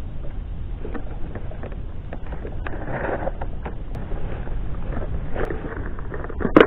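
Wind on an action camera's microphone over a steady low rumble, with scattered small clicks and knocks of gear on a kayak. A sharper click near the end comes as a plastic tackle box is handled.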